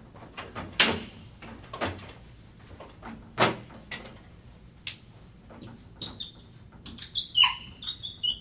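A few separate swishing strokes against an easel board, then a run of short squeaks from a marker writing letters on the board in the second half.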